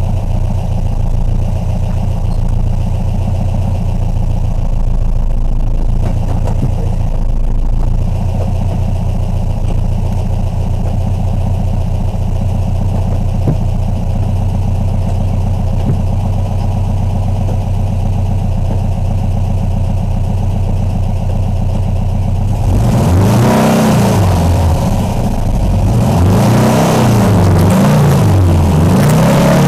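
Engine of a Seven-style open roadster idling steadily, then, about three quarters of the way through, revved up and down several times as the car begins to move.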